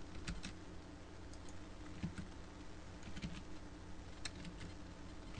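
Computer keyboard and mouse being used: a scattered run of light, irregular key and button clicks, over a steady low electrical hum.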